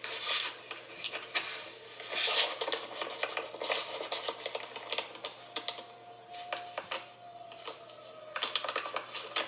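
Rapid, irregular clicking and tapping in uneven flurries. From about the middle, a faint thin tone is held and then slides a little lower.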